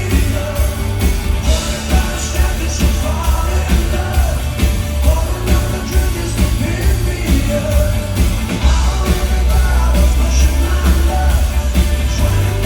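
Live rock band playing with a singer over a heavy, booming bass.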